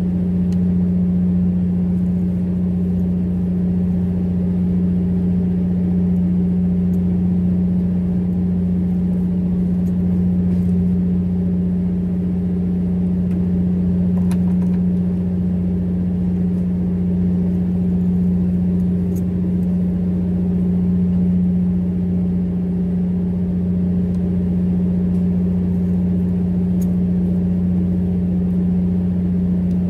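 Fishing boat's engine running steadily: an even, unchanging low drone, with a few faint ticks.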